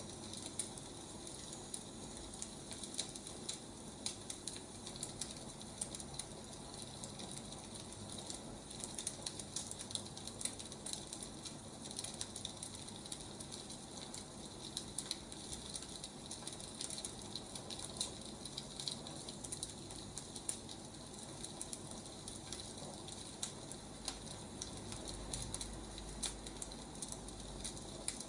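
Wood fire crackling: a steady stream of small, irregular crackles and pops over a soft hiss.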